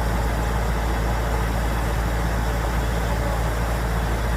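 Kubota DC-105X combine harvester's diesel engine running steadily with an even low hum.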